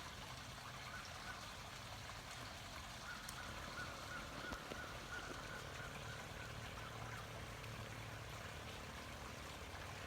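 Faint outdoor background noise with a low steady hum, and a faint run of quick, repeated high notes from about three seconds in, lasting about two seconds.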